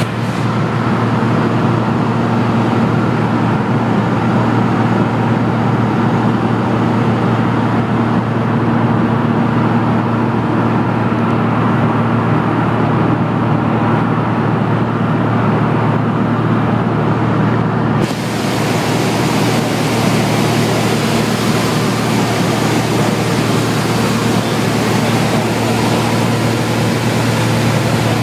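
Steady drone of a Cessna 182 Skylane's piston engine and propeller in flight, heard inside the cabin: a low, even hum with a rushing hiss over it. The hiss turns sharply brighter about two-thirds of the way through.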